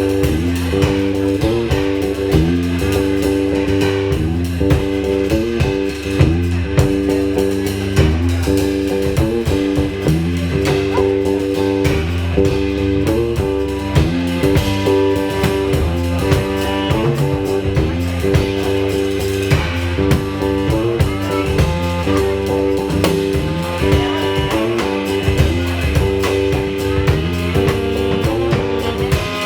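A trio playing blues-tinged instrumental music: guitar over a low riff that repeats steadily, with a drum kit keeping time.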